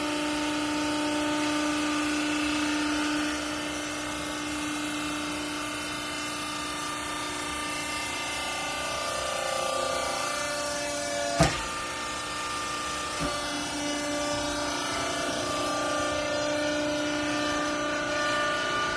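Textile cloth baler running with a steady machine hum made of several tones, its pitch shifting slightly a few seconds in and again around nine seconds. There is a single sharp clack about eleven seconds in and a fainter click a couple of seconds later.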